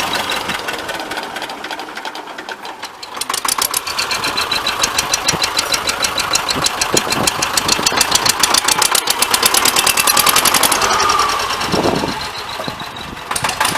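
T-25 tractor's two-cylinder air-cooled diesel running with a rapid, even knocking beat. It revs up about three seconds in, holds, then drops back near the end.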